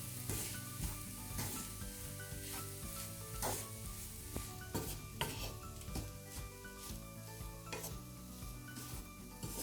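A spoon stirring and scraping a prawn, coconut and onion mixture in a pan, which sizzles as it fries in sesame oil, with several irregular scrapes against the pan. Quiet background music plays underneath.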